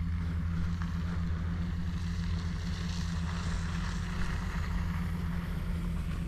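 A steady low machine hum from an engine or motor, holding even throughout, with a hiss over it.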